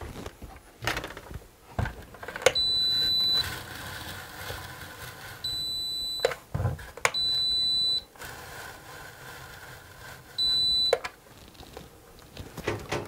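Handheld electronic stud finder sliding across a wall and giving four steady high-pitched beeps, each about half a second to a second long, as it passes over stud edges. Short clicks come at some of the beeps.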